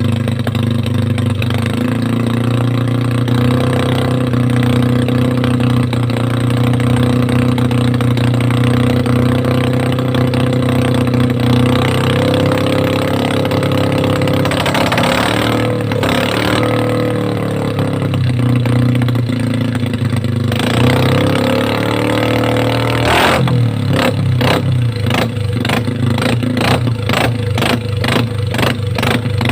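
Yamaha Mio i 125 scooter's single-cylinder engine, running through an open exhaust pipe, idling steadily and revved briefly twice, about halfway and again about three-quarters through. Near the end the idle turns choppy, with a regular run of sharp pops about two or three a second.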